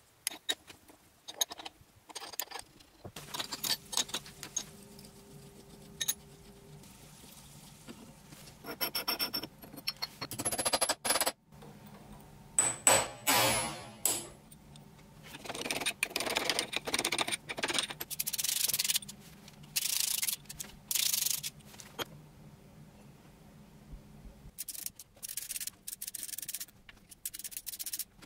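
Workshop hand work on metal machine parts: bouts of scraping and rubbing a second or two long, broken up by many small metallic clicks and clinks, over a faint steady hum.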